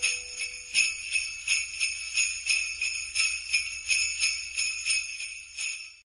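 Sleigh bells shaken in a steady beat, about three shakes a second, closing out a Christmas music track after the rest of the band has stopped; they fade and stop shortly before the end.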